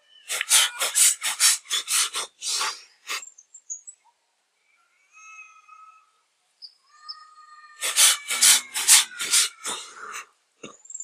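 Mukha dhauti, the yogic cleansing breath: two people blowing breath out through the mouth in a quick series of short, forceful puffs, about eight in a row, then after a pause of a few seconds a second series. Birds chirp in the pause.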